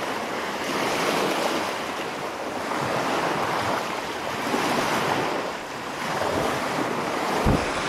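Small waves washing up over a sandy shoreline, a steady rushing hiss that swells and eases every couple of seconds.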